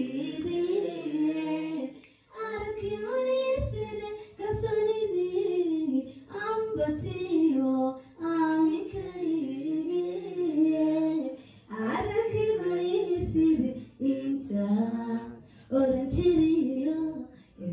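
A woman singing solo into a microphone with no backing music, in melodic phrases a second or two long separated by short breaths.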